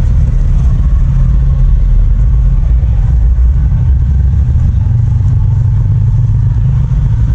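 Motor vehicle engine running steadily while driving: a loud, continuous low drone.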